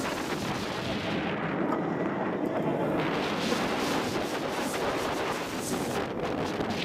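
Heavy wind rushing and buffeting the microphone, with a steady rumbling roar, as from a camera riding a moving roller coaster.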